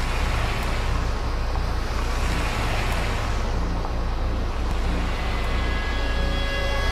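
Military trucks' engines running as the trucks drive past, a steady low rumble that swells as one passes close about halfway through. Sustained music tones come in near the end.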